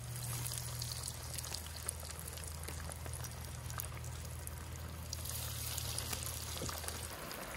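Breaded fish fillets deep-frying in hot oil in a fryer basket: a steady bubbling sizzle full of fine crackles. A steady low hum runs underneath and cuts off about seven seconds in.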